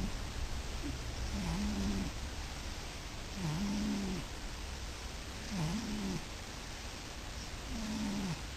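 Domestic cat snoring in its sleep: four pitched snores about two seconds apart, each dipping and then rising in pitch.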